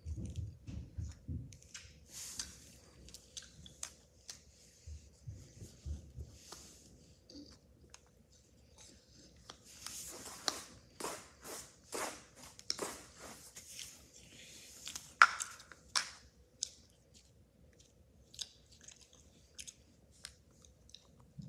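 Hands kneading, pressing and shaping Play-Doh with plastic tools, making irregular soft clicks, crackles and scratchy handling sounds. There are a few dull low thumps in the first several seconds, and the clicks come thickest in the middle.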